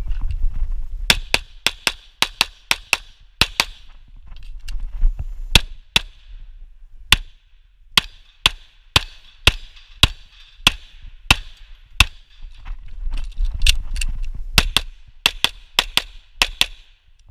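Semi-automatic pistol fired in quick strings of shots, about thirty in all, with two brief pauses, one about a quarter of the way through and one about three quarters through. A low rumble sits under the shots.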